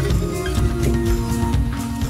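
Background music with held notes over a steady low bass; the notes change about half a second in.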